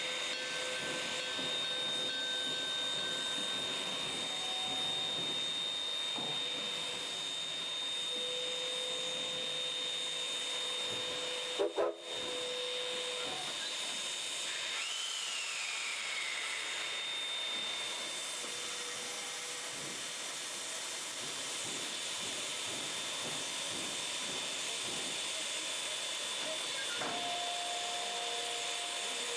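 Standing K-36 narrow-gauge steam locomotive hissing steadily at rest, with a thin steady high whine over the hiss and a single sharp knock about twelve seconds in.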